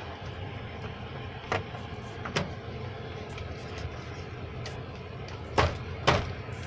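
A few scattered knocks and clunks, the two loudest close together near the end, over a steady low hum.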